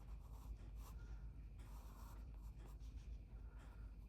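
Faint scratching of a graphite pencil sketching on paper in short, irregular strokes, over a low steady room hum.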